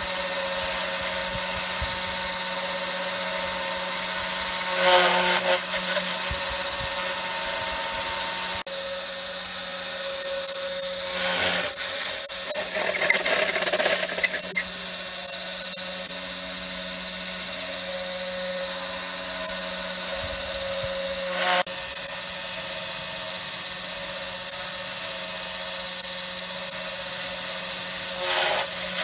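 Spindle of a 3018 Pro desktop CNC router running with a steady whine while a V-bit carves into oak, with a few brief louder bursts of cutting noise.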